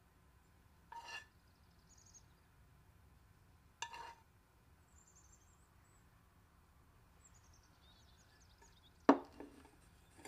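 A few sharp knocks, the loudest about nine seconds in, over faint bird chirps.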